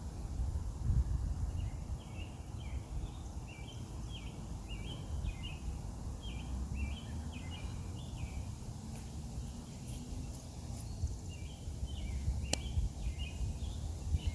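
A small bird chirping, a quick run of short repeated notes in two bouts, over a steady low rumble of outdoor background noise.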